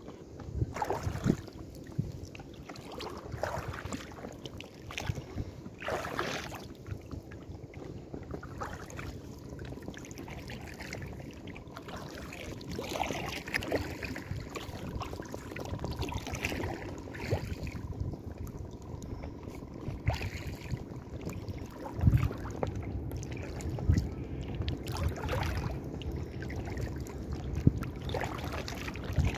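Paddle splashing and dripping water as an inflatable kayak is paddled, with irregular strokes over water lapping against the hull.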